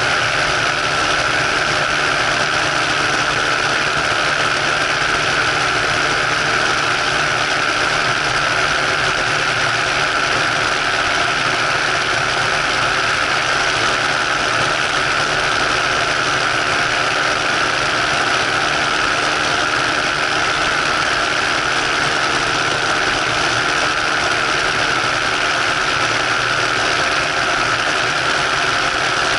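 Ultralight trike's engine running at a steady cruise in flight, a constant unbroken drone mixed with the rush of air past the wing-mounted microphone.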